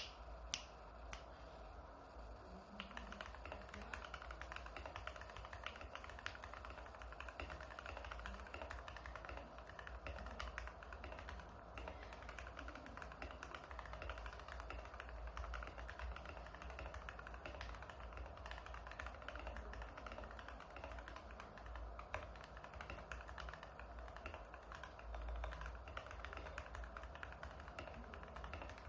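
Typing on a Redragon K630 mechanical keyboard with lubed Gateron Yellow linear switches, an aluminium plate and an acrylic case. It starts with a few single key presses, then runs as a continuous stream of keystrokes from about three seconds in.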